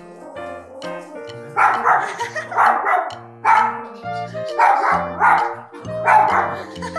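Toy poodle barking repeatedly, starting about a second and a half in, over background music from a TV programme.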